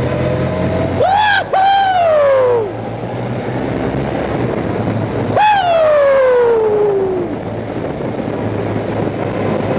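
Honda Crosstourer's V4 motorcycle engine running inside a road tunnel, revved hard twice, about a second in and again about five seconds in. Each rev jumps up sharply and then slides down in pitch over one to two seconds.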